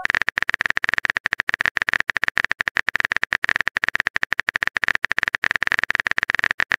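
Phone keyboard typing sound effect: a rapid, steady stream of key clicks, more than ten a second.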